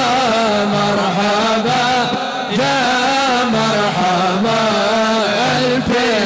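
Group of men singing an Arabic devotional nasheed (salawat) together into microphones: a wavering, ornamented melody over a low held drone note, with a short pause for breath about two seconds in.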